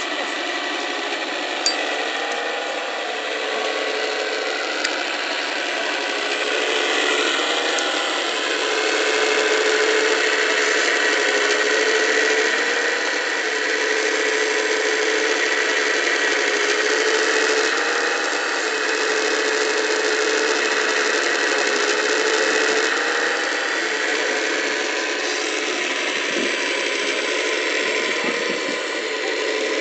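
Hydraulic pump and motors of a 1:14.5 scale RC Caterpillar 345D excavator running as it digs and loads dirt. A steady whine comes and goes in stretches of a few seconds as the boom, stick and bucket are worked.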